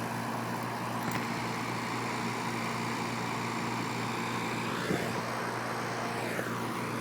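Steady low mechanical hum of an idling fire engine.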